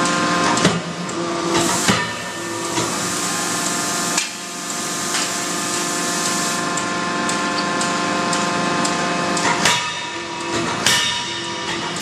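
Hydraulic double-acting forging hammer striking, with sharp blows: two in the first two seconds and two more near the end. Between the blows there is a steady machinery hum and hiss.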